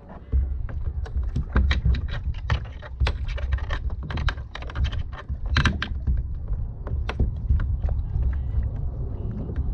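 Irregular clicks, taps and knocks of hands unhooking a small fish in a kayak, over a steady low rumble.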